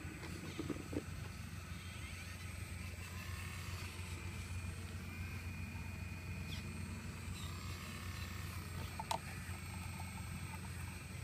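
An excavator's engine running steadily with a low hum and a faint whine above it. There are a few short knocks about a second in and a sharp click about nine seconds in.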